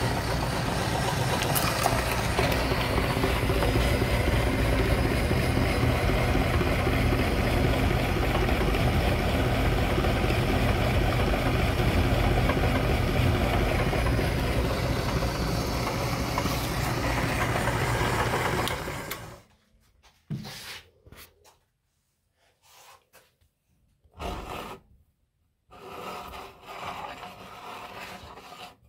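Electric meat grinder's motor running steadily with a low hum while it grinds frozen ice cream bars, switched off suddenly about two-thirds of the way through. After that come a few short scraping and rubbing sounds as a hand works the ground ice cream off the grinder's outlet plate.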